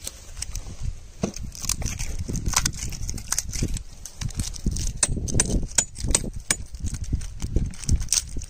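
Dry straw crackling and rustling under a kneeling worker, with many irregular sharp clicks as he handles pump-cable wires and a roll of insulation tape.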